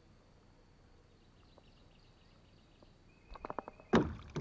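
Quiet open-air ambience with a faint, thin, high steady tone, then a little over three seconds in a quick run of clicks and a sharp loud knock: fishing gear being handled in a jon boat.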